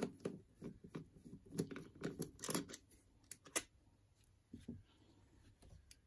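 Small clicks and light scrapes of a screwdriver working the top-cover screws out of a Harley-Davidson Keihin CV carburetor, with the screws and tools being handled and set down. The clicks are frequent in the first three and a half seconds, then come only once or twice more.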